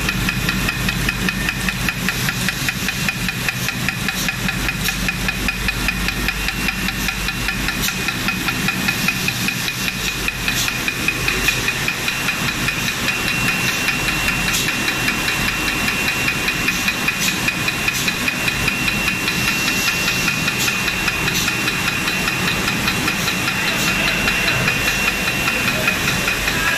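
Rotary bottle labeling machine and its conveyor running at speed: a rapid, even clatter over a steady hum. A thin high whistle joins about halfway through and stops shortly before the end.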